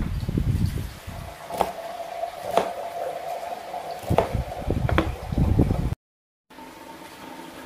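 Kitchen knife chopping long beans on a wooden cutting board: irregular dull thuds with sharp taps of the blade striking the board, the cut pieces crunching. It cuts off abruptly about six seconds in.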